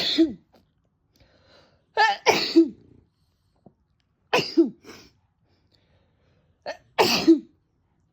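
A woman sneezing over and over, a loud sneeze about every two seconds, each a quick breath in and a sharp burst.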